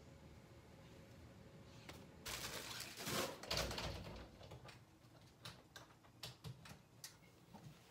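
Faint handling noise: a rustling, scraping stretch about two seconds in, then a scatter of light clicks and knocks.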